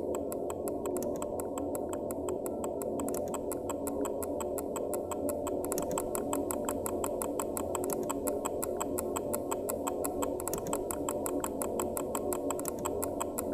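Film score music: a fast, steady ticking pulse over a sustained drone.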